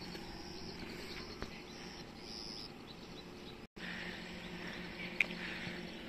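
Outdoor ambience of insects chirping in a high, pulsing trill, over a steady low hum. The sound cuts out for an instant a little past halfway.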